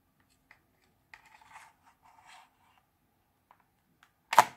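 Faint rubbing and scratching, then one sharp, loud knock near the end, followed by a small click.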